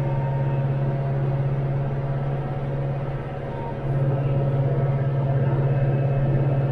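Branson 5520 compact tractor's diesel engine running steadily under load with a strong low hum; it dips slightly about three seconds in and comes back louder just before four seconds.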